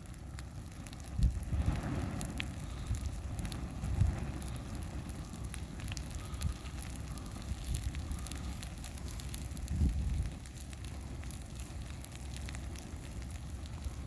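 Small fire burning down a plush stuffed bear, crackling and popping over a steady hiss. Several low rumbles come and go, about a second in, at four seconds and near ten seconds.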